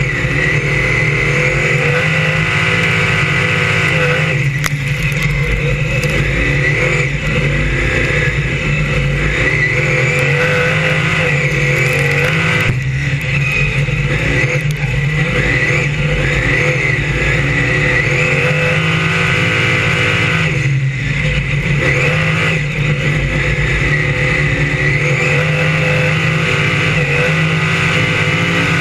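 Brisca F1 stock car's V8 engine heard on board, at racing speed, its pitch rising and falling again and again as it accelerates and backs off around the oval. It lifts off briefly about 4, 13 and 21 seconds in.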